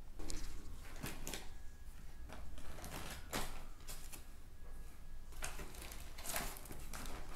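Clear plastic packaging bags crinkling and rustling in short, irregular rustles as hands move through fur sandals packed in a cardboard box.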